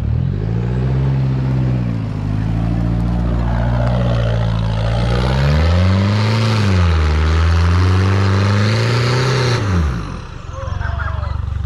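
Offroad 4x4's engine revving up and down as it drives over a dirt track and past. The engine note rises and falls several times, highest about six seconds in, and drops away about ten seconds in.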